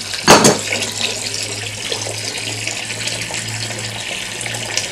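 Water streaming from the brass outlet fitting of an inline refrigerator water filter into a partly filled plastic bucket, at strong pressure, as the new filter is bled of air. A brief loud burst comes about a third of a second in.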